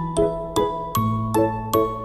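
Background music: a gentle melody of struck, ringing notes, about two or three a second, over a held bass note that changes about halfway through.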